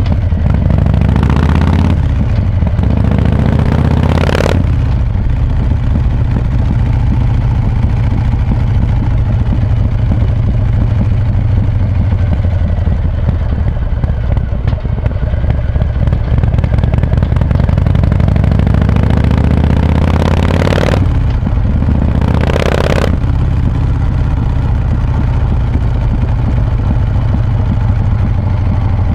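Harley-Davidson Breakout's V-twin with an S&S 475 cam, running through Vance & Hines pipes with quiet baffles, pulling steadily under way. Twice, near the start and about two-thirds through, a brief rush of noise rises over the engine.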